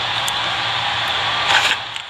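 Steady rushing hiss with a low hum under it, cutting off just before the end, with a brief clatter about one and a half seconds in.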